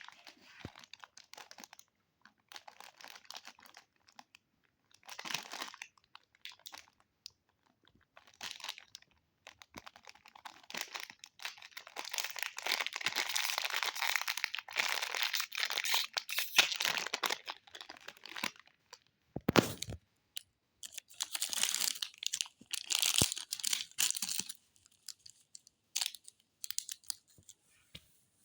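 Plastic candy packaging crinkling and tearing as it is handled and opened, in irregular bursts of rustling, with a single thump about two-thirds of the way through.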